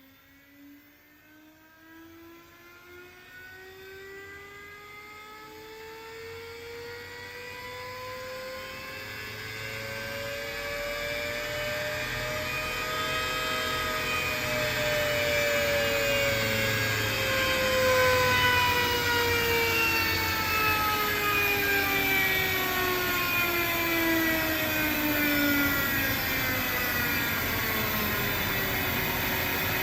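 Alup SOLO 15 inverter-drive screw air compressor running under load, its permanent-magnet motor and screw element giving a whine that climbs in pitch for about the first half, then slides back down, while growing steadily louder throughout. It is pumping its air receivers up toward 8 bar.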